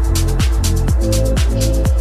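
Electronic dance music: a steady four-on-the-floor kick drum about twice a second, hi-hats between the beats, and a held bass and synth chord.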